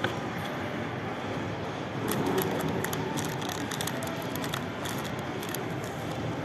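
Paper food packaging being handled: a short snap right at the start as the lid comes off a cardboard chicken bucket, then a run of quick rustles and crinkles as a paper fries carton is picked up and moved, from about two seconds in to about five, over steady room noise.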